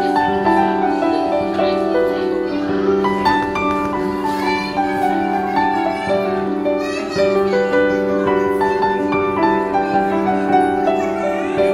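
Instrumental music: a melody of changing notes over steady held chords.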